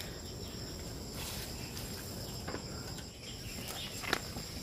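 Steady high-pitched chirring of insects, held on two even tones. There is a short sharp click about four seconds in.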